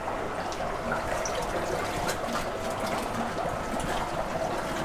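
Water gushing and splashing from the PVC elbow outlet of an airlift into a fish tank as the airlift, driven by a 60-watt LP-60 air pump, starts up.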